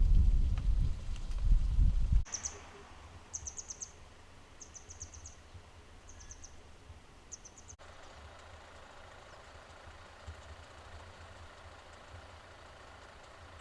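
A low rumble, like wind buffeting the microphone, for about the first two seconds, stopping abruptly. Then a small bird calls five times over the next five seconds in short, high, rapid trills, over faint outdoor background.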